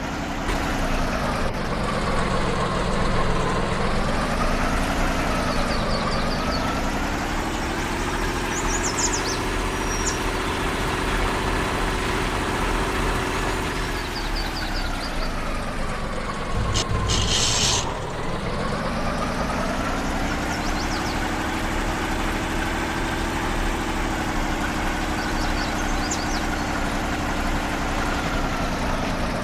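Off-road vehicle engine running, its pitch rising and falling repeatedly as the throttle comes on and off, with a brief noisy burst about seventeen seconds in.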